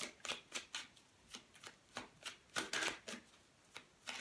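A deck of oracle cards being shuffled by hand, hand to hand: an uneven run of short papery slaps, a few a second, bunching into a quick flurry about three seconds in.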